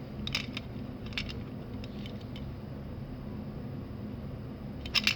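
Light metal clicks from pliers working the wire catch of a cheap wooden snap mouse trap as it is pinched, a few scattered clicks and then a quick cluster of sharper ones near the end.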